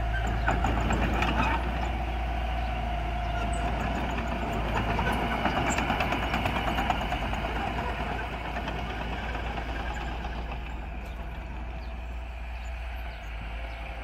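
Small Mitsubishi crawler bulldozer's diesel engine running under load as it pushes soil, with rapid clanking from its steel tracks. The sound grows somewhat fainter after about eight seconds.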